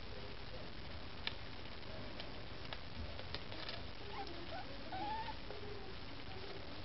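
Nursing Maine Coon kittens giving a few faint, thin squeaks about four to five seconds in, with a few soft clicks earlier.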